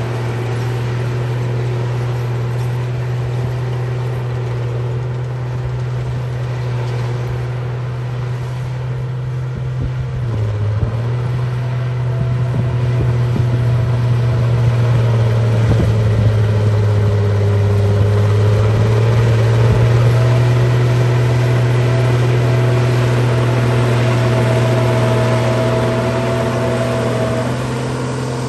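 Bulldozer engine running steadily with a deep hum. Its pitch dips briefly about ten seconds in, and it grows somewhat louder from about twelve seconds on.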